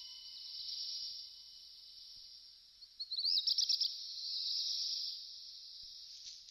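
Shrill insect buzzing, high-pitched and steady, that swells and eases; about three seconds in it starts again with a quick run of rapid pulses before holding on.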